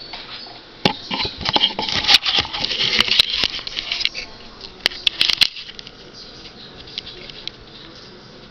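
Camera handling noise: a burst of clicks, knocks and rubbing from about a second in to about five and a half seconds, as the camera is picked up and moved around a table hockey game, then only faint ticks.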